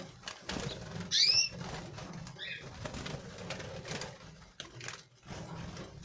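Red canaries in an aviary: short arched call notes, the loudest about a second in and another around two and a half seconds, among wing flutters and small clicks of birds hopping on the perch.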